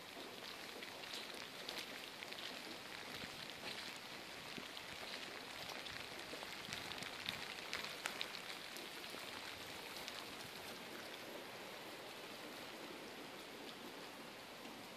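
Steady light rain falling, an even hiss with many small drop ticks scattered through it.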